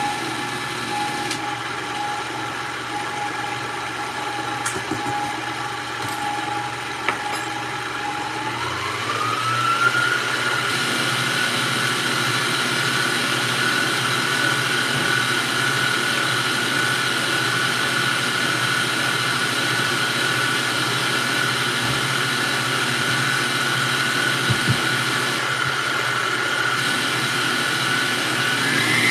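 Electric stand mixer motor whirring steadily as it beats egg-white protein batter on low speed. About nine seconds in its pitch climbs as the speed is turned up, and it rises again right at the end.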